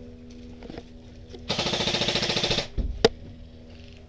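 Airsoft rifle firing a rapid full-auto burst of about a second, then a single sharp shot about a second later.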